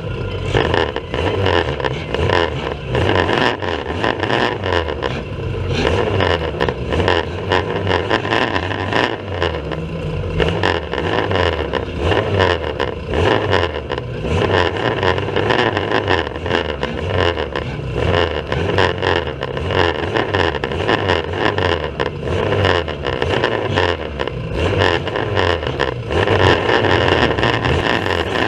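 Banger racing cars' engines running and revving on the track, the engine pitch rising and falling. Heard through poor, rattling, distorted audio.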